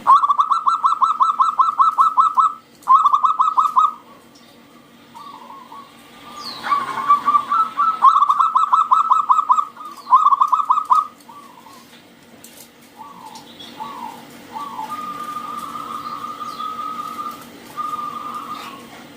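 Zebra dove (perkutut) singing: loud bursts of rapid, staccato trilled coos lasting a couple of seconds each, in the first four seconds and again around the middle, then softer, quieter coo phrases toward the end.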